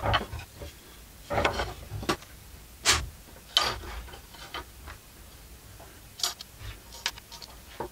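Wooden buck saw parts (arms, round crossbar and blade) being set down and fitted together on a wooden tabletop: a series of irregular, sharp wooden knocks and clacks.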